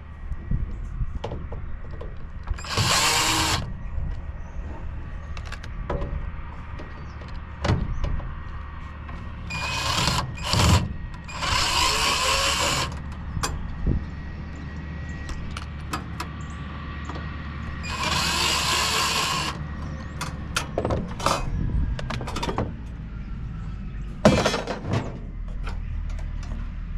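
Power drill running in about five short bursts of a second or two each, backing screws out of a microwave's sheet-metal casing, with clicks and clinks of metal parts being handled between bursts.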